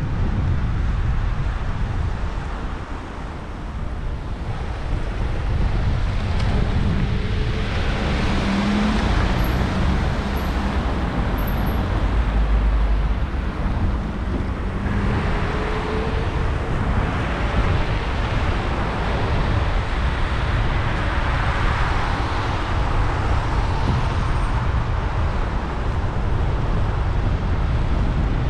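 Road traffic heard from a moving bicycle: cars passing on the wet road, their tyre noise swelling and fading several times, over a steady low rumble of wind on the microphone.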